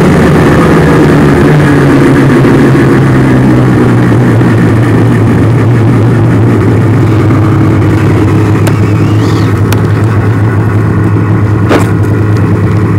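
Snowmobile engine heard from on board, its pitch dropping in the first second as the sled slows, then running steadily at low speed. A sharp click near the end.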